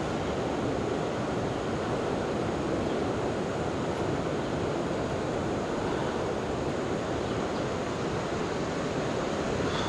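Steady rushing of river water, an even noise with no rhythm or engine tone.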